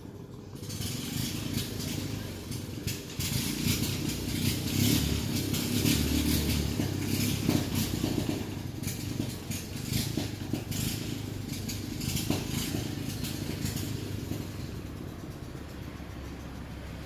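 An engine running nearby, a low rumble that grows louder over the first few seconds and fades in the second half, with scattered rustles and clicks over it.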